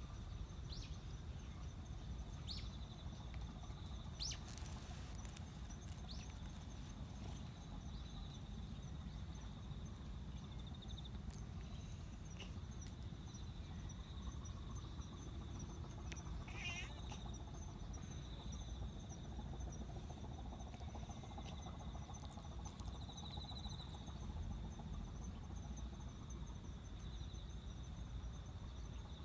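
Insects trilling steadily in two high, finely pulsing tones over a low background rumble, with a few brief clicks and a short chirp about two-thirds of the way through.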